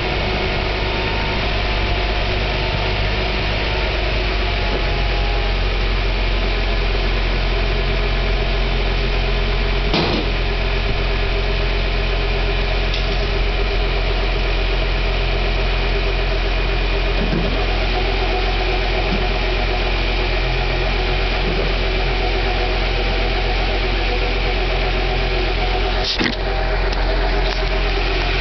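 Honda Prelude's H22 four-cylinder engine idling steadily, with a secondary noise that the owner suspects is a bad tensioner. Two brief knocks, about ten seconds in and near the end.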